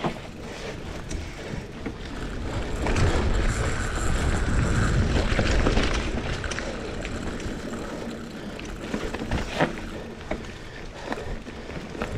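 GT Aggressor Pro mountain bike rolling fast over a dirt trail: tyre noise over the ground with frequent sharp clicks and rattles from the bike, and a low rumble of wind on the microphone that grows louder from about three to six seconds in.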